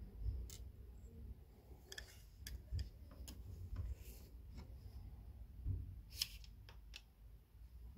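Scattered light clicks and taps, about a dozen at uneven intervals, from hands handling a small RC truck and its plastic transmitter.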